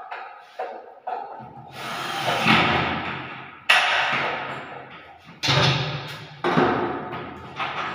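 A newly hung interior door being swung and pushed shut: a series of knocks and thuds, the sharpest about halfway through, echoing in a bare tiled room.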